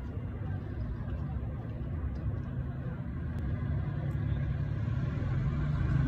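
Steady low rumble, growing slightly louder toward the end.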